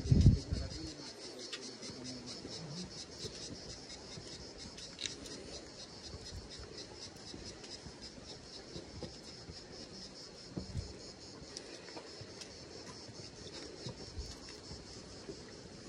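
Insects trilling steadily in a high, fast-pulsing chorus, with a low thump right at the start and a fainter one about eleven seconds in.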